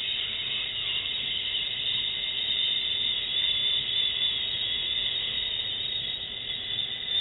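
A person exhaling a long, steady "shhh" hiss: the liver sound of the Taoist Six Healing Sounds, held on one breath.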